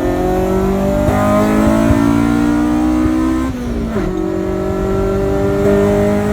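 Honda EK9 Civic Type R's B16B four-cylinder engine accelerating hard, its pitch climbing steadily, dropping at an upshift about three and a half seconds in, then climbing again.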